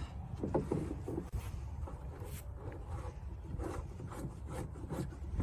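Irregular plastic rubbing and scraping with a few light taps: a silicone-beaded plastic pipe fitting being screwed by hand into the side port of an Aquascape 1000 plastic pond skimmer box.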